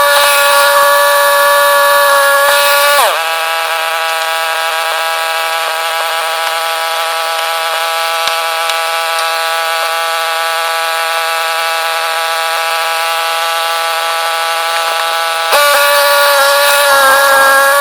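Ariens 624E two-stage snowblower engine running steadily. About three seconds in its pitch dips and the sound turns thinner and quieter, then returns to its fuller sound near the end.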